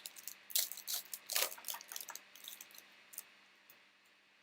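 Glossy trading cards being flipped through by hand: an irregular run of crisp clicks and short swishes of card sliding over card, thinning out in the last second or so.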